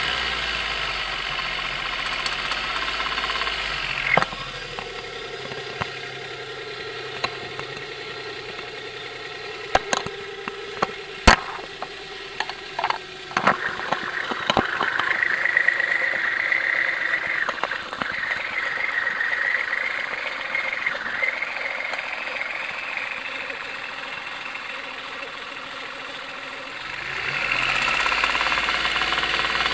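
1993 Geo Metro engine running with a knocking noise that showed up after a Seafoam treatment. It drops quieter about four seconds in, gives a handful of sharp clicks near the middle, and runs louder again near the end.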